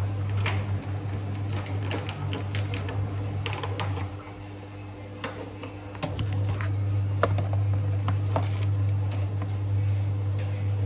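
A low electrical hum that cuts out about four seconds in and comes back two seconds later, with scattered light clicks and taps over it.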